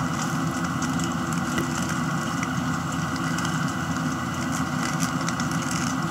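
A steady engine-like hum, with faint scattered clicks as the plastic layers of a Rubik's cube are turned by hand.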